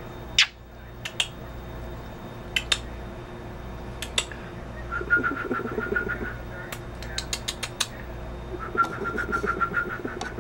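A young songbird calling: two stretches of a fast trill held on one pitch, one about five seconds in and one near the end, with sharp clicks scattered between them.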